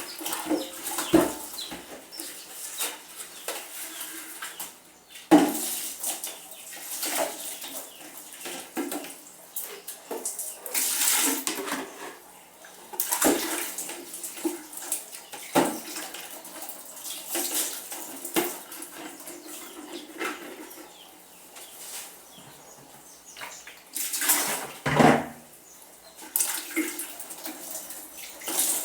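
Dishes and cutlery being hand-washed in a basin of water: irregular splashing and sloshing, with plates and utensils clinking and knocking now and then.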